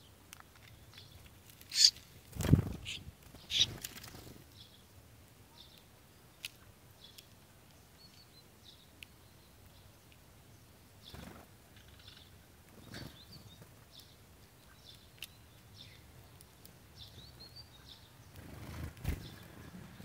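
A sparrow feeding at a slotted metal tube feeder, pecking and knocking against it, with several sharp knocks about two to four seconds in and a duller thump near the end. Faint high chirps of small birds come and go throughout.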